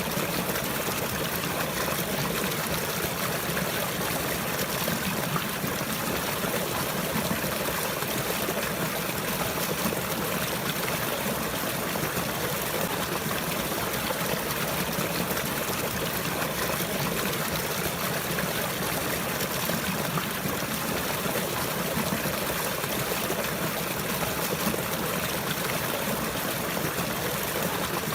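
Water flowing and trickling steadily, an even rushing sound that never breaks or changes.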